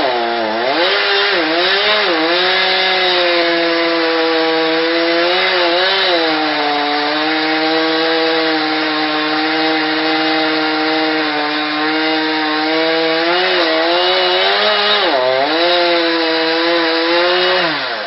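Chainsaw running at high revs while cutting into a tree trunk. The engine pitch dips several times, about a second in, around six seconds and again around fourteen to fifteen seconds, as the chain bites and loads the engine, then falls off near the end.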